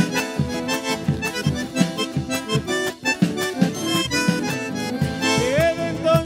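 Live folk band playing a chacarera: acoustic guitars over a steady drum beat with a held melody line on top. A singer comes in near the end.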